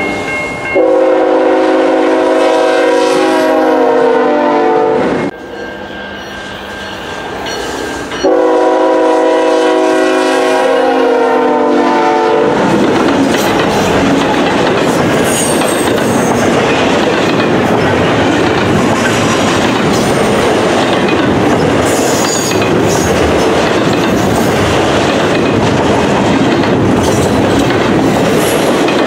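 Horn of a GE ES44AC diesel locomotive sounding two long blasts a few seconds apart; the first falls in pitch near its end. Then the steady noise of double-stack intermodal container cars rolling past close by.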